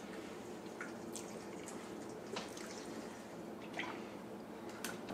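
A person drinking from a plastic water bottle: a few faint wet clicks and gulps, spaced irregularly, over a quiet steady background.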